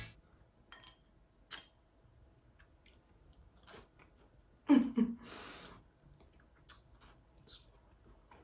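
Quiet mouth sounds of a person chewing a dense bar: soft wet clicks and smacks, with a short hum and a breath out through the nose near the middle.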